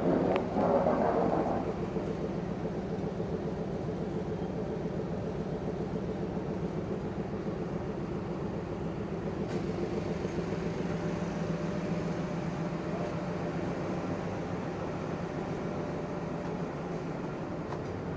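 Ferry's engines running with a steady, even drone and hum. A louder, busier sound dies away in the first second and a half.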